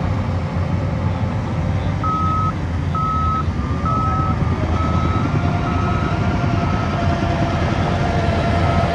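Heavy construction machine's engine running steadily, with its reversing alarm starting about two seconds in and beeping about once a second as it backs up.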